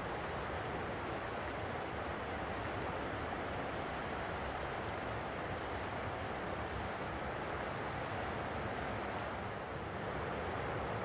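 Boeing 737-700's CFM56-7B turbofan engines running at low taxi power, a steady rushing jet noise with a brief slight dip near the end.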